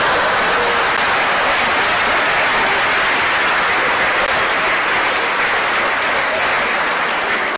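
A studio audience applauding steadily, easing off slightly near the end.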